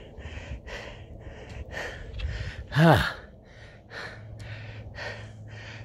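A hiker panting hard on a steep uphill climb, about two heavy mouth breaths a second. Near the middle comes one short, loud voiced exhale that rises and then falls in pitch.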